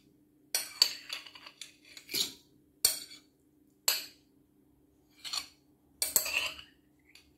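Metal spoon scraping and clinking against a porcelain plate while scooping wet kaong (sugar palm fruit) off it, in a string of separate short strokes with a pause about two thirds of the way through.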